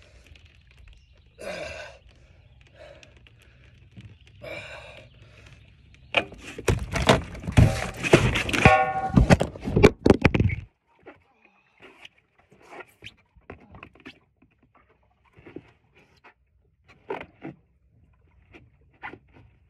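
A muskellunge thrashing in an angler's grip, its tail slapping and its body and the knocked-over phone thudding and clattering against the boat for about four seconds, with a short shout partway through. It cuts off suddenly, and only scattered faint knocks follow.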